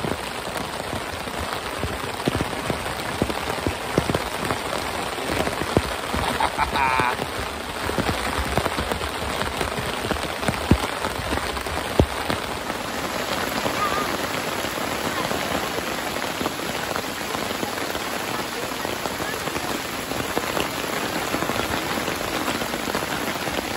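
Heavy rain falling on a tarp rain fly overhead: a steady hiss of rain with scattered sharper drop strikes on the fabric.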